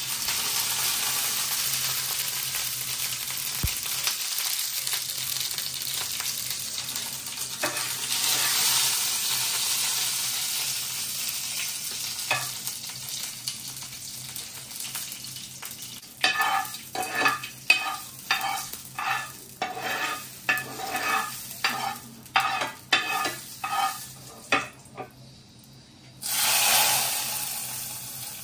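Mustard seeds, dried red chillies and curry leaves sizzling in hot coconut oil for a sambar tempering. Over the second half a metal spoon stirs, clinking against the pan about twice a second, and near the end there is a short, loud burst of sizzling.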